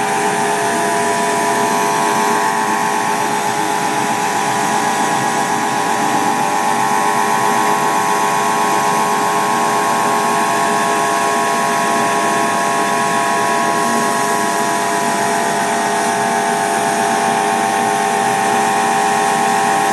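Laser cutting machine running while its head cuts lines into a flat die board: a loud, steady mechanical hum with several constant tones.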